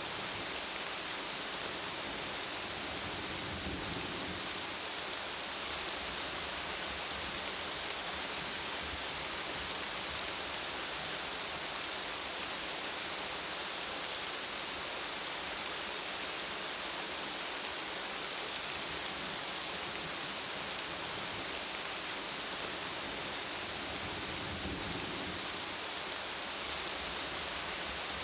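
Steady rain falling, a constant even hiss, with two faint low rumbles, one about four seconds in and one near the end.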